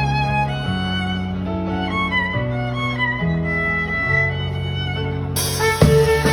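Small ensemble of violin, cello, flute, trumpet, keyboard and percussion playing an instrumental arrangement of an anime theme song, with a violin melody of held notes over a low string and keyboard line. About five seconds in, cymbals come in, followed by drum hits near the end.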